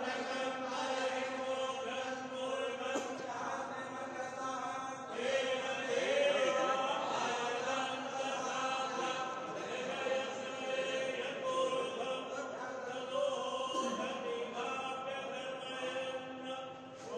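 Several men's voices chanting Hindu mantras together in a steady, continuous drone.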